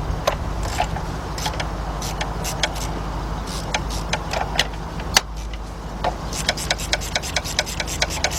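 Ratchet and socket clicking and metal tool clinks while the spark plugs of a 3.7 V6 are broken loose, over a steady low hum. The clicks come irregularly at first, then settle into a quicker run of about five a second past the six-second mark.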